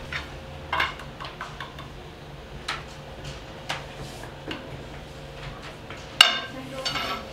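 Scattered clicks and knocks of hard utensils and tools on a bakery work surface, about a dozen strikes. A few ring briefly, and the loudest comes about six seconds in.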